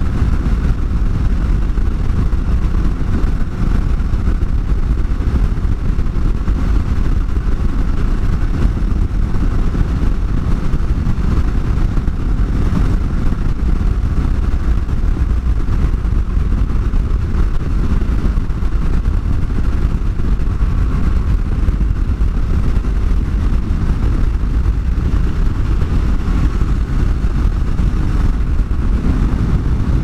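Motorcycle being ridden along at a steady pace: engine and road noise under a heavy, even rush of wind on the helmet microphone, with no revs or gear changes standing out.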